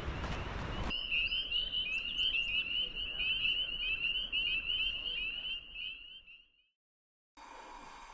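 A dense chorus of frogs: many short, high peeping notes overlapping, starting about a second in and fading out after about six seconds. Before it, a rush of noise cuts off suddenly; near the end, faint room tone with a steady hum follows a short gap.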